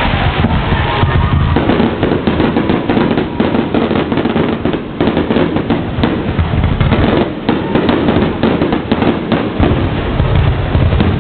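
Aerial fireworks bursting in quick succession: many sharp bangs and crackles one after another over a continuous low rumble.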